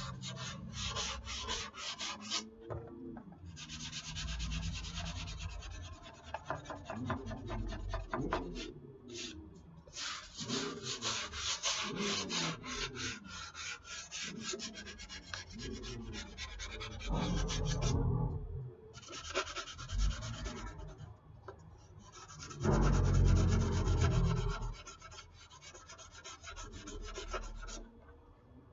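Sandpaper rubbed by hand over a foam model-airplane wing, smoothing dried spackle filler over a repair. It goes in runs of rapid back-and-forth strokes broken by several short pauses.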